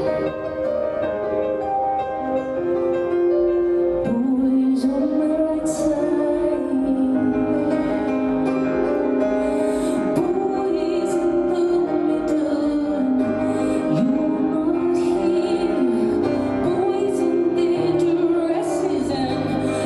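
Music with held notes throughout, joined about four seconds in by a singing voice carrying a wavering melody.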